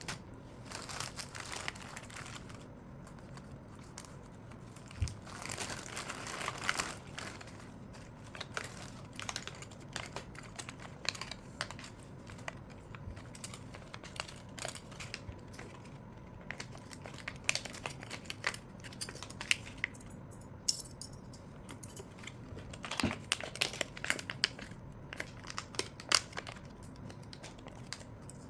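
Crinkling of plastic packaging with scattered light clicks and taps from small sewing tools being handled, in irregular short bursts.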